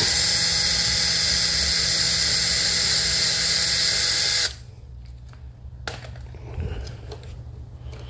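DeWalt electric drill spinning at a steady whine as it backs out a door-mirror mounting bolt, then stopping suddenly after about four and a half seconds. A sharp click and light handling follow.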